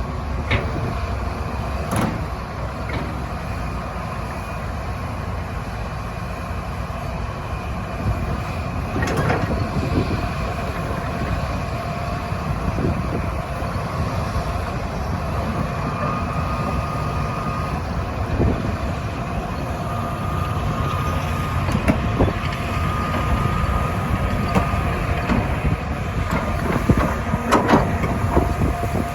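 Excavator running steadily while it works, with a few sharp clanks and a thin steady tone that comes and goes.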